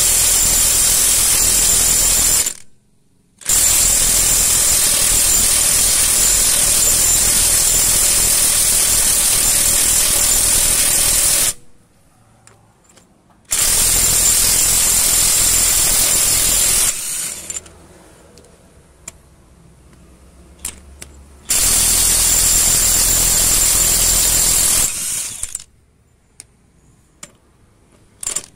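DeWalt DCF897 3/4-inch brushless cordless impact wrench hammering on truck wheel nuts through a 41 mm impact socket. It runs in four long bursts of steady rattling impacts, the longest about eight seconds, with short pauses between as the socket moves from nut to nut, then stops near the end with a few light clicks.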